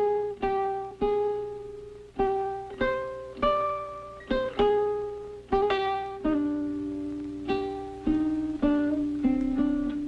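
Music: a plucked string instrument playing a slow melody of single notes, each struck sharply and left to ring and fade, with the notes moving lower near the end.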